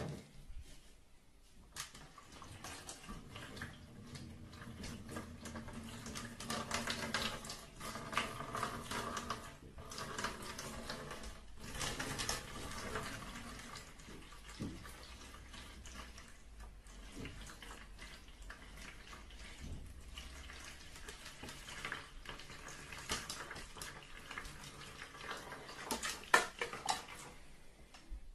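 Water running and splashing, with irregular small clicks and knocks.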